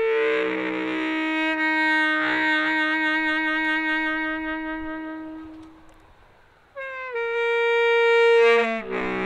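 Solo saxophone improvising: a long held note that fades away about six seconds in, a short pause, then a new note that falls to a lower one near the end.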